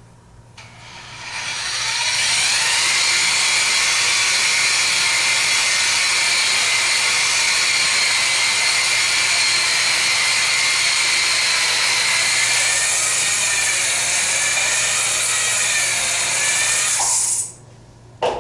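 Variable-speed drill spinning a wet abrasive pad in a SMarT BMS cup against a bowling ball: a steady motor whine with a rubbing hiss. It winds up about a second in, runs evenly, then cuts off sharply near the end, followed by a short click.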